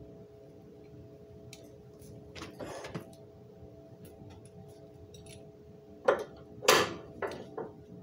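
A winch hook and synthetic rope being handled at the fairlead: light ticking and a short rustle, then four sharp metal clanks about six to seven and a half seconds in, over a faint steady hum.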